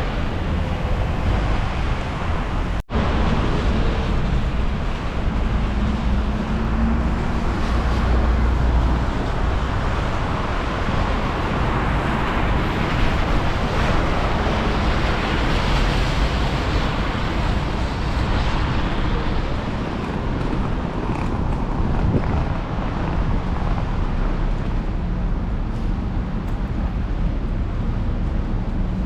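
Wind buffeting the microphone over a steady rumble of city road traffic. The sound cuts out for an instant about three seconds in.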